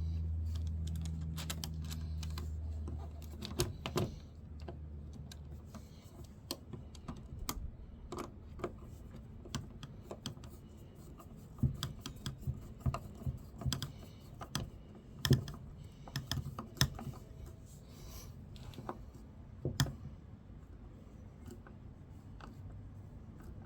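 Irregular light clicks and taps of hand tools and small metal hardware while a mirror is being fitted to a car. A low steady hum runs for the first few seconds, then stops.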